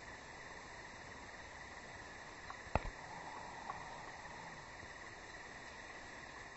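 Quiet woodland ambience with a steady high insect drone, and one sharp click a little before the middle, with a couple of fainter ticks around it.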